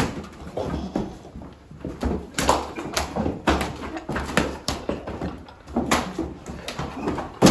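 Scuffle between two men wrestling and shoving: irregular thuds and slaps of bodies and hands, shuffling feet, and short grunts.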